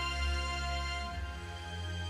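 Background music: sustained synth-like tones over a deep bass note, the chord changing about a second and a half in.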